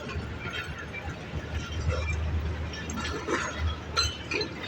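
Railway station sound: scattered metallic clinks and knocks over a low rumble that swells in the middle, as of a train moving slowly through the station.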